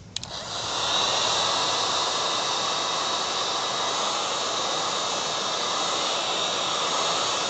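An electric blower is switched on with a click, spins up within about a second, then runs steadily with a rushing noise and a high whine.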